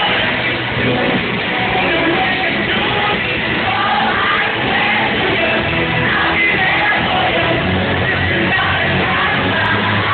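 Live rock band playing on stage, with electric and acoustic guitars, drums and a lead singer singing into a microphone.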